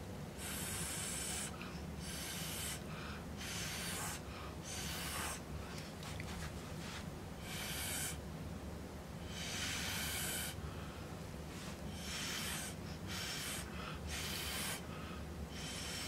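Puffs of breath blown through a straw onto wet acrylic paint to push it across the canvas: a dozen or so short, separate breathy hisses, about one a second.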